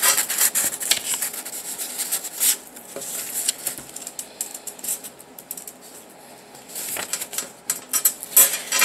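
A sheet of green paper rustling and crackling as it is rolled by hand into a tube, busiest near the start and again near the end.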